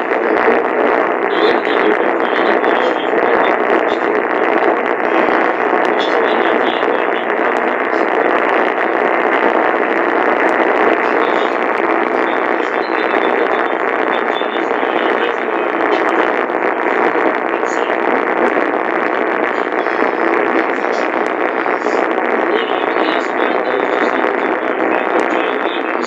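AM radio receiver tuned to 1430 kHz giving a steady hiss of static with faint crackles, no programme audible.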